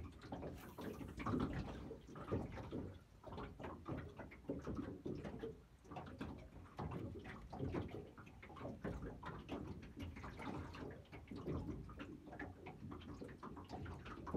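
Small waves lapping and slapping irregularly against the hull of a small open fishing boat.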